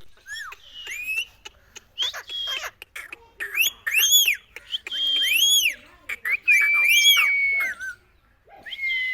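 Pet parrot whistling and chattering: a quick run of high, arching whistles that rise and fall, with a few long held whistle notes and short clicks between them.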